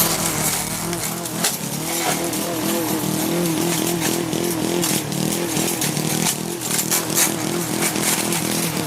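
Lawn mower's small gasoline engine running, its pitch wavering up and down under load as it mulches tree branches, with repeated sharp clacks of branches being chopped.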